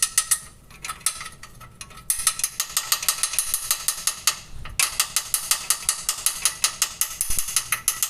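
Rapid, regular clicking, about seven or eight clicks a second, from a small stone trapped in a Honda City's suspension area, the cause of the strange suspension noise heard on dirt roads. A few scattered clicks come first; the steady run starts about two seconds in and breaks off briefly near the middle.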